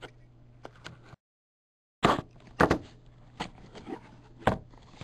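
Sharp taps and knocks of a cardboard trading-card box being opened by hand, its seal cut with a small knife and its lid worked off. The sound drops out completely for about a second, just after one second in.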